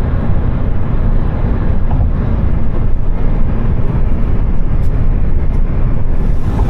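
Loud, steady low rumble of a car driving: road and wind noise.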